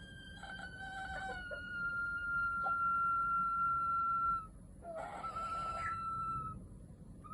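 Japanese bantam (chabo) rooster crowing: one long crow held on a steady pitch for about four seconds, then a shorter crow that starts rough and settles on the same note, about five seconds in. A few short lower clucking notes overlap the start of the long crow.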